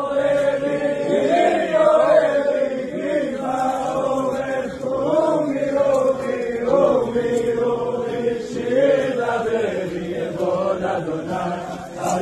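A large group of men singing a Shabbat-welcoming song together in unison, a continuous melody rising and falling in pitch.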